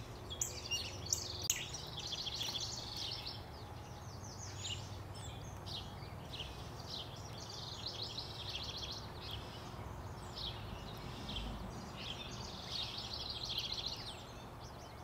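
Several songbirds chirping and singing in quick, overlapping phrases, over a faint steady low hum.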